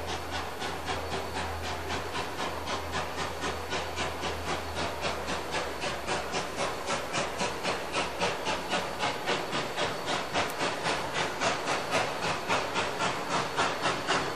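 Narrow-gauge steam locomotive approaching, its exhaust chuffing in a steady beat of about three a second that grows louder.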